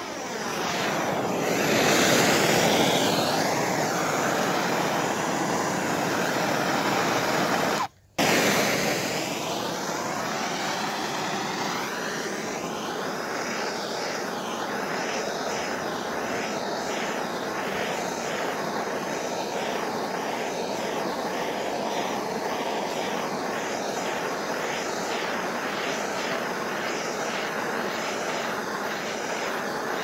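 Handheld propane torch burning with a steady rushing hiss as its flame plays over a wooden board. The sound cuts out briefly about eight seconds in, then runs on.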